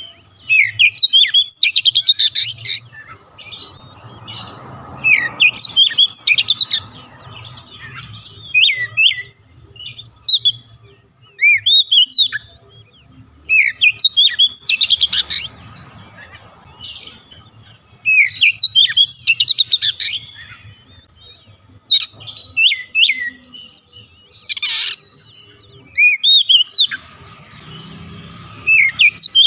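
Male Oriental magpie-robin (kacer) singing loudly in repeated bursts of varied whistled notes and fast rattling trills, with short pauses of a second or two between phrases.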